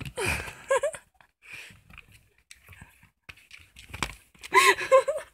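Two-year-old orange tabby cat giving short meows at the start and a quick run of several brief meows near the end, which the owner takes for her being angry. A sharp tap sounds about four seconds in.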